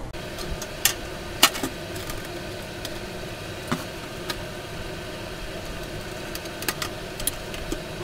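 Plastic microwave door parts clicking and knocking as the inner door panel is set into its outer frame: a scattered handful of sharp clicks, the loudest about a second and a half in. A steady hum continues underneath.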